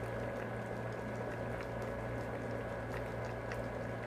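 Stingray stewing in coconut milk (ginataang pagi) simmering in an aluminium pot, with many small scattered bubble pops over a steady low hum.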